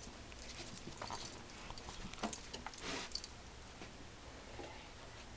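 Bull terrier nosing and mouthing at a lemon on the carpet: scattered small clicks and knocks, busiest in the first three seconds, with the loudest a little past two seconds in.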